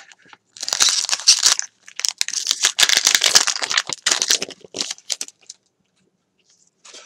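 Foil wrapper of a Pokémon trading card booster pack crinkling and tearing as it is ripped open, in two long stretches of crackling followed by a few shorter rustles.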